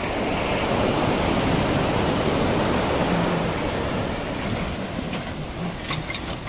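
Surf breaking and washing up the sand around the hull of a grounded sailing yacht, a steady rush of water that is loudest in the first half and eases after about three and a half seconds. A few light clicks near the end.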